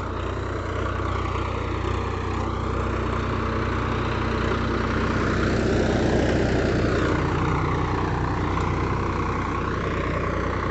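Swaraj 744 XT tractor's three-cylinder diesel engine running steadily under load as it pulls a rigid-tine cultivator through the soil, growing louder around the middle as it passes close by.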